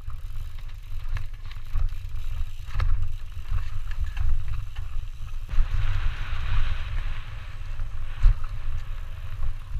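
Wind buffeting a helmet-mounted action camera's microphone during a fast mountain bike descent, with the bike rattling and clicking over bumps as its tyres roll over dirt and grass. A louder hiss comes in for a couple of seconds past the middle.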